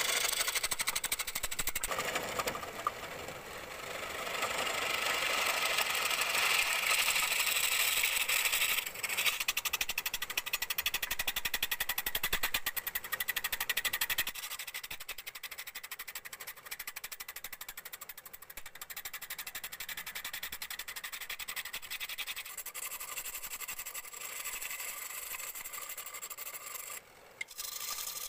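Flat chisel scraping across the face of a large wooden disc spinning on a wood lathe, a steady hiss of cutting. It is louder for the first half and lighter after about halfway.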